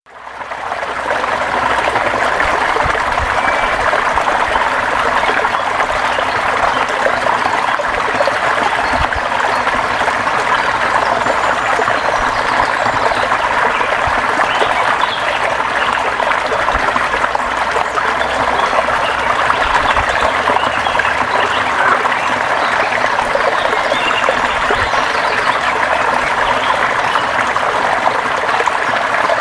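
River water flowing and babbling over rocks, a steady, even rush that fades in over the first second.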